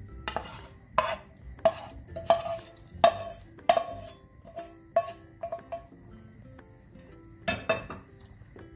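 A spatula and frying pan knocking and scraping against the rim of a pressure cooker as fried tadka is emptied into cooked palak chana dal and stirred in. The sharp knocks have a short metallic ring, come about one a second for the first six seconds, and two more come near the end.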